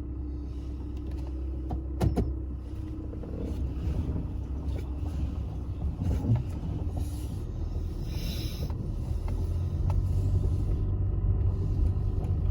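Car driving, heard from inside the cabin: a steady low rumble of engine and road noise that grows a little louder near the end. A sharp click comes about two seconds in, and a short hiss around eight seconds.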